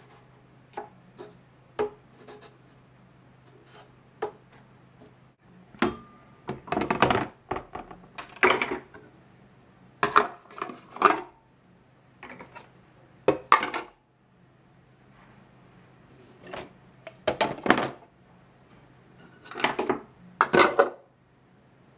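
Hard plastic toy pots, pans and bowls knocking and clattering as they are set into a plastic storage bin, in scattered clusters of knocks with pauses between, over a faint steady low hum.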